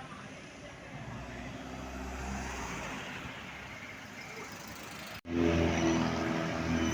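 Road traffic with vehicle engines running. About five seconds in the sound breaks off abruptly and resumes with a louder, closer engine running steadily.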